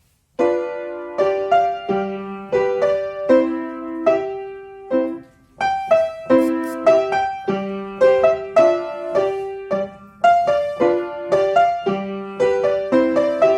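Piano playing a brisk, rhythmic accompaniment for battement tendu jeté at the ballet barre. Short chords are struck a few times a second in even phrases, beginning a moment in.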